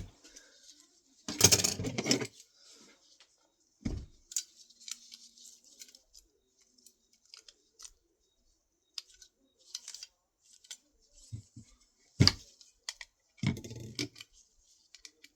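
Small metal and plastic parts of a 3.5-inch floppy disk drive being handled and pried apart by hand: scattered clicks and clinks, with a louder rattling scrape about a second and a half in and a few knocks later on.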